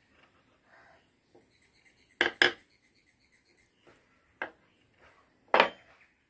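Steel carving gouges and chisels set down on a wooden board, knocking and clinking against the other tools: a quick double knock about two seconds in, then single knocks about four and five and a half seconds in.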